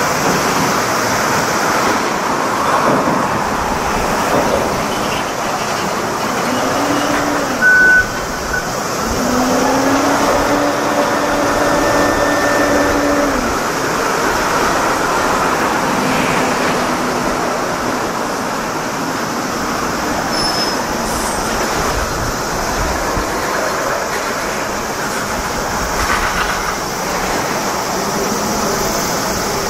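Heavy port machinery droning steadily as a reach stacker handles a shipping container. Its engine note rises, holds for several seconds and falls away as the container is lifted. A short high beep sounds about eight seconds in.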